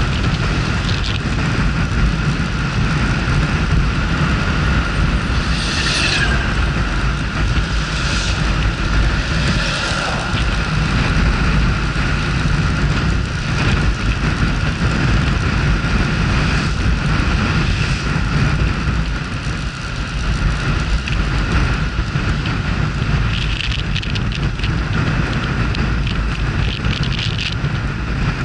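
Honda Super Cub 110's small single-cylinder engine running steadily while riding, under heavy wind rumble on the microphone.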